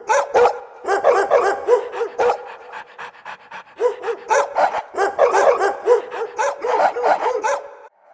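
A dog whining and yipping in quick runs of short, arching high calls, several a second, with a lull about two and a half seconds in.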